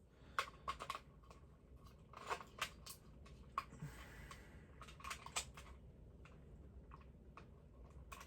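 Hands handling a plastic doll toy: scattered light clicks and taps, with a brief rustle about four seconds in.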